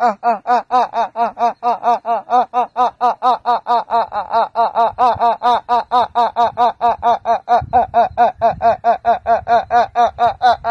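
A man's long, exaggerated staccato laugh, 'ha-ha-ha' at about five beats a second, kept going without a break for breath. It is so theatrical that it could pass for crying or a pigeon calling.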